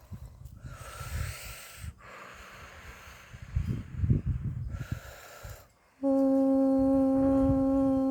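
Two heavy, breathy exhalations from a person, with soft low rumbles between them. About six seconds in, a steady held tone with a row of overtones starts suddenly and keeps sounding.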